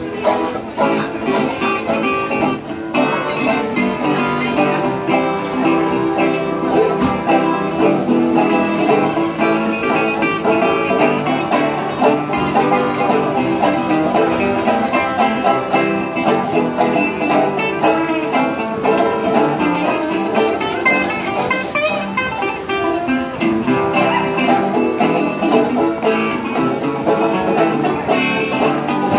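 Two banjos and two guitars playing together live, a picked and strummed acoustic string-band tune.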